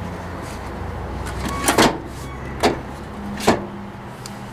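Sharp plastic clicks and knocks, a quick double one about halfway in and two more about a second apart, as the hinged lid of a car's dash-top storage bin is unlatched and lifted open, over a low steady hum that fades near the end.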